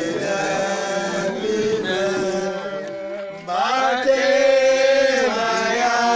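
A group of people singing together in a chant-like song with long held notes, growing louder about three and a half seconds in.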